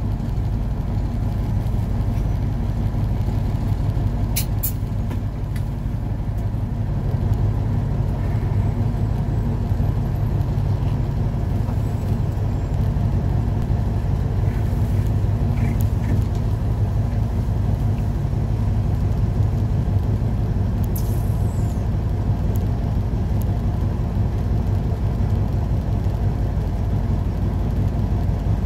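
Truck engine running at a steady low idle, heard from inside the cab while the truck waits at a light. A couple of sharp clicks come about four seconds in, and a short falling squeak comes later.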